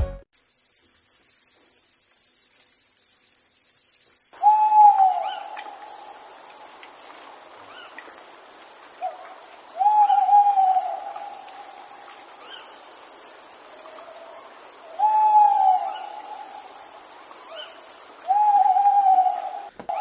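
Night-time outdoor ambience: a steady high insect trill like crickets, with a long hooting call that starts about four seconds in and repeats four times, roughly every four to five seconds.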